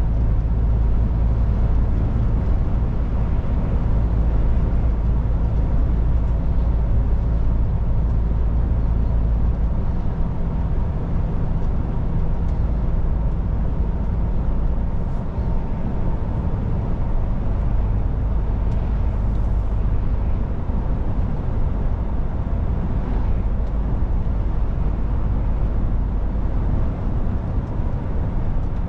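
MAN truck's diesel engine and tyres running at speed: a steady low engine drone over road noise. About ten seconds in the deepest part of the hum eases off, and it comes back stronger later.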